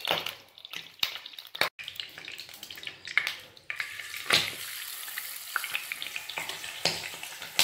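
Marinated stingray pieces sizzling as they are laid one by one into hot coconut oil in a frying pan, with scattered knocks as they go in. The sizzle grows louder and steadier about halfway through.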